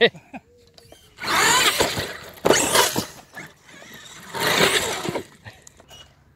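Electric RC monster truck's motor whining in three short throttle bursts, the pitch sliding up and down within each burst.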